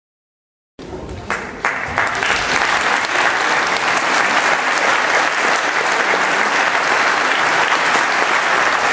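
Audience applauding. The clapping starts suddenly about a second in, swells over the next second or two and then holds steady.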